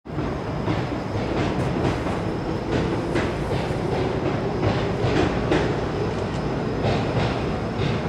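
A train running past: a steady rumble with irregular clacks.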